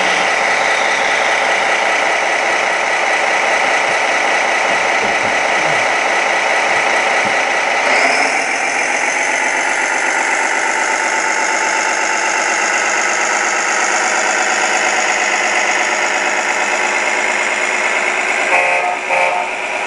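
1:16-scale radio-controlled hydraulic excavator running: the steady drone of its hydraulic pump together with the simulated diesel engine of its sound module, changing in tone about eight seconds in. A few short beeps near the end.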